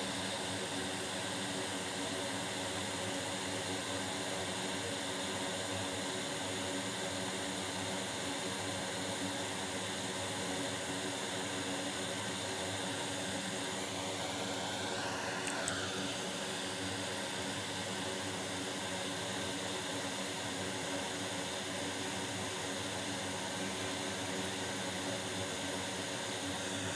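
Steady whir and hiss of a fan blowing air, cooling a MacBook logic board after soldering work. A faint brief rustle comes about halfway through.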